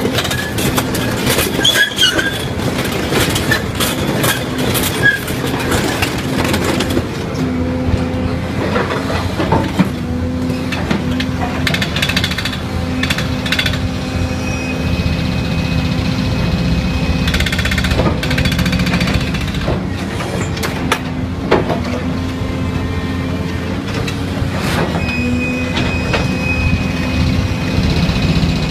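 Hydraulic vibro ripper on an excavator vibrating its tooth against rock, giving a steady hum over the excavator's engine. Rock cracks and crunches densely for the first several seconds, and single sharp knocks follow later.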